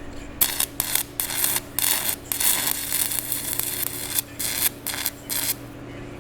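Arc welding on a driveshaft: a crackling, sputtering arc in a string of short runs with brief breaks, over a steady electrical hum.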